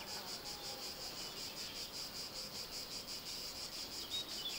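Crickets chirping in a steady, fast, evenly pulsing high trill.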